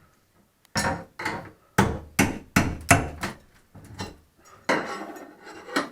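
Hammer blows striking a bathroom sink vanity as it is demolished: about seven sharp whacks in quick succession over the first few seconds, then lighter knocks and a second-long stretch of grating noise near the end.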